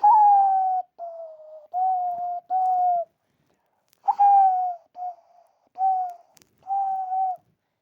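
A person whistling a hollow, dove-like tune of eight short, breathy notes in two groups of four, each note flicking up at its start and then sliding slightly down.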